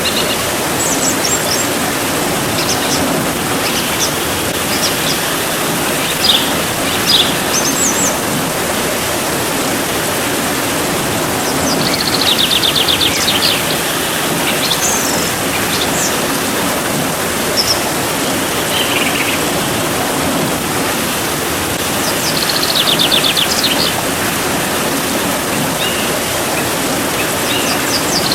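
Steady rain falling as an even rushing hiss, with birds calling over it: scattered short chirps and a rapid trill that comes three times.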